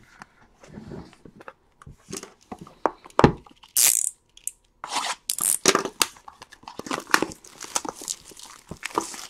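A sealed baseball-card hobby box being ripped open by hand: its wrapping and cardboard crinkle and tear in irregular bursts, louder about three and five seconds in.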